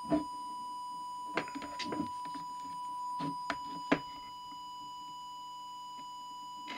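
Steady, unchanging test tone from an audio oscillator, fed into the CB transmitter's microphone input so that its deviation can be measured and set. A few small clicks and knocks of handling sound over it in the first four seconds.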